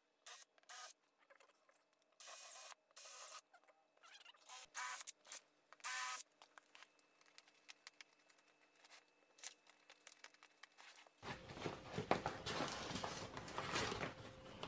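Cordless drill running in short bursts, drilling out the rivets that fasten the old cover to a motorcycle seat's metal pan; the bursts stop about six seconds in. From about eleven seconds in comes a louder, continuous rough rustling and ripping as the old cover is pulled off the seat pan and foam.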